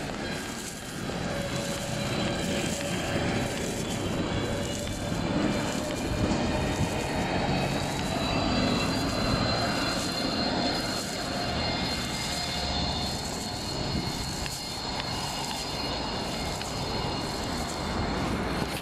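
Riding noise from a vehicle moving along a city street: a steady rumbling wash of wind and road noise, with a high, thin whine that rises slightly in pitch and then holds.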